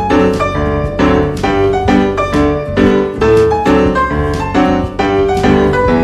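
Background piano music: a steady run of notes over repeated chords.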